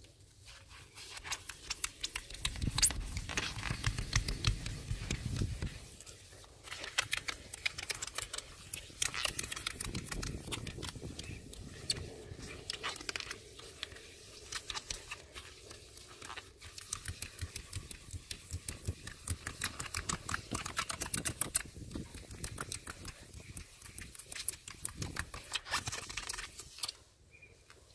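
Wet magic sponge (melamine foam) scrubbing a uPVC door panel in rapid rubbing strokes with short pauses, lifting black scuff marks. A low rumble runs under the scrubbing for the first few seconds.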